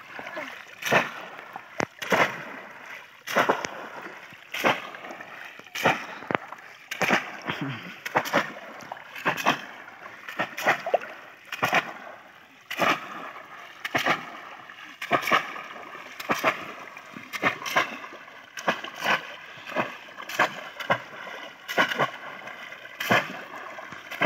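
Bamboo cone fish traps being plunged down into shallow muddy field water over and over, a splash a little more than once a second.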